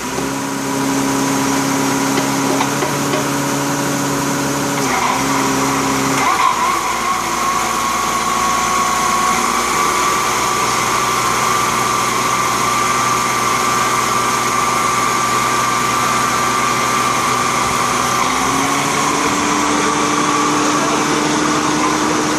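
Exploration drilling rig's power unit and hydraulic drive running steadily, a machine hum with several steady tones. Its pitch shifts as the speed is set at the control panel: a brief dip about five seconds in, a change around six seconds, and a step up near the end.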